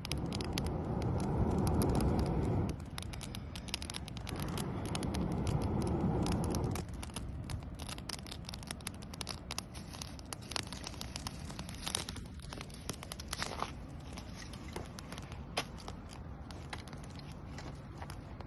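Small campfire of cedar tinder and small sticks catching, crackling with many sharp pops. In the first seven seconds there are two long rushes of air, each a couple of seconds long.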